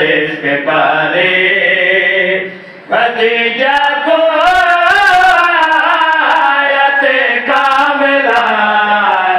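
A man sings a devotional qasida in long, held notes through a microphone and PA. The line breaks off briefly about two and a half seconds in, then resumes.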